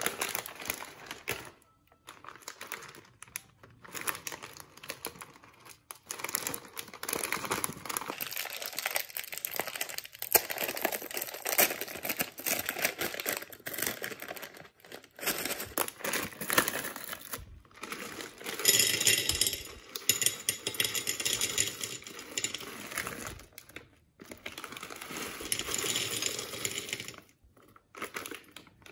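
Plastic snack bag crinkling and rustling in the hands as it is worked open, in irregular spells with short pauses. Coated peanuts are poured from the bag onto a plate near the end.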